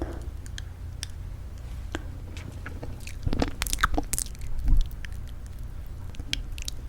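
Close-miked tapping and handling of lipstick tubes: irregular sharp clicks and taps, busiest and loudest a little past the middle, over a steady low hum.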